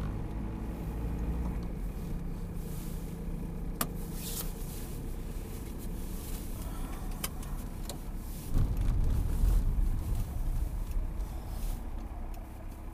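Car driving slowly, heard from inside the cabin: a steady low engine and tyre rumble, with two sharp clicks and a louder rumble lasting about a second and a half past the middle.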